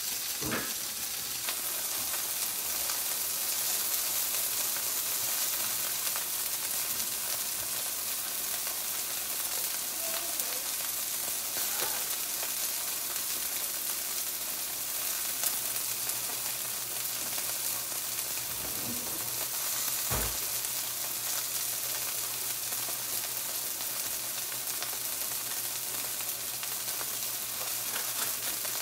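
Bite-sized chicken pieces sizzling steadily in a nonstick skillet turned down to low heat.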